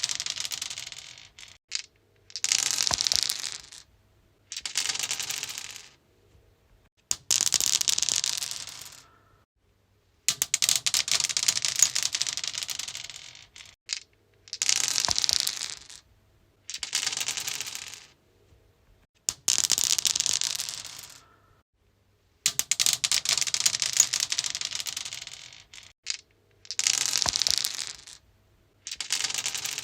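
Dice rolled again and again on a stone surface, about ten rolls in all. Each roll is a quick run of hard clattering clicks that starts loud and thins out as the dice settle, with a short silence before the next.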